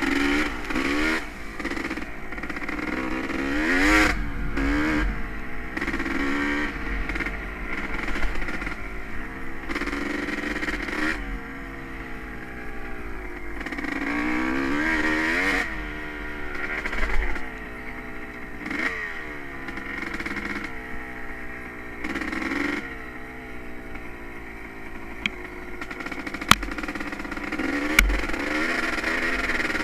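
Honda CR250R two-stroke dirt bike engine being ridden, its revs rising and falling again and again with the throttle. Two sharp knocks come near the end.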